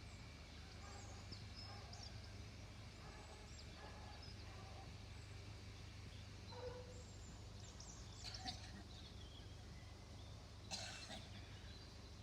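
Faint outdoor ambience with scattered small bird chirps. There are two brief noisy bursts in the second half.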